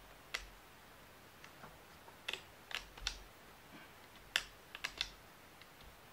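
AK-pattern rifle's safety selector lever being worked, a string of sharp metallic clicks at irregular intervals, several close together about four to five seconds in. The lever is stiff and is being eased by pressing it slightly away from the receiver.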